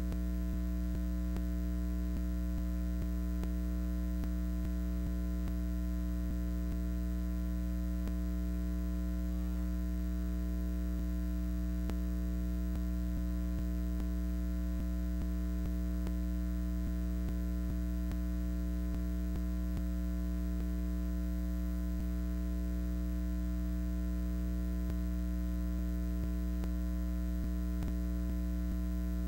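Steady electrical mains hum: a low, unchanging drone with a buzzy stack of higher overtones.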